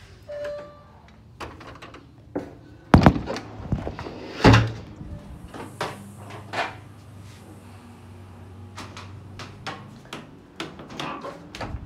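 House doors being handled: latches clicking, a door opening and thudding shut, with two loud thuds about 3 and 4.5 seconds in and smaller knocks and clicks around them. A faint steady low hum starts after the second thud.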